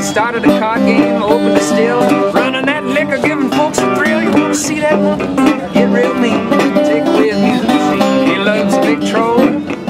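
Resonator guitar fingerpicked in a ragtime tune: a busy instrumental run of plucked treble notes over a steady alternating bass.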